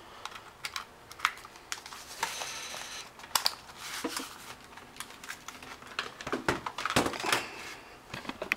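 Handling noise from a USB cable and a small plastic monitor: scattered light clicks and knocks with brief rustling, as the cable is plugged into a netbook's USB port and the sliding monitor is moved about.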